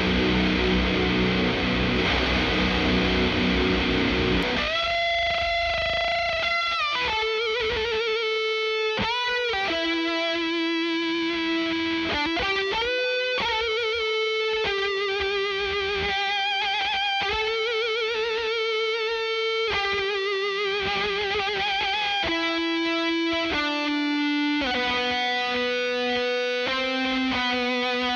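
Heavily distorted electric guitar through a Blackstar Series One 6L6 valve head and a Celestion Vintage 30 8-ohm speaker in a 1x12 cab, recorded dry with no EQ or compression. It starts with a dense, quad-tracked rhythm part, and about four and a half seconds in changes to a single-note lead solo with bends and held notes with vibrato.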